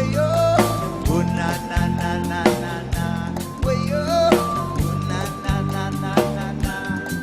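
A live band playing through a sound system at a sound check: drum kit with regular hits, sustained bass notes and a melodic lead line that slides up and down in pitch.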